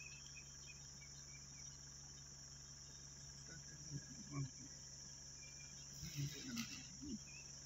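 Insects in the forest making a steady, high-pitched drone. A few faint low sounds come through about halfway in and again near the end.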